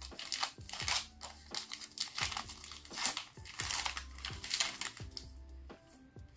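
Foil wrapper of a Pokémon trading-card booster pack crinkling and being torn open in quick irregular crackles, which die down about five seconds in.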